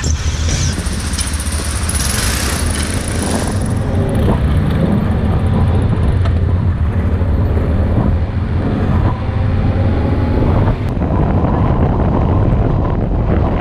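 Trail motorcycle engine running steadily as the bike is ridden, heard from a helmet-mounted camera.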